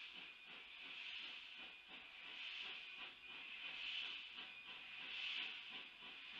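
Narrow-gauge steam locomotive heard from afar as it starts its train, a steady hiss of steam swelling in slow, regular beats.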